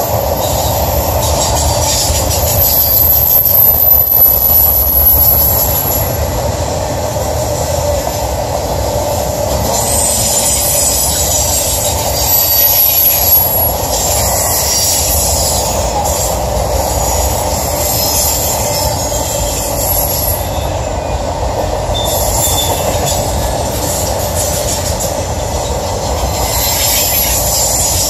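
Intermodal freight cars loaded with highway trailers rolling past, with a steady rumble of steel wheels on the rails. A thin, high-pitched wheel squeal comes and goes, most marked a few seconds in and again near the middle.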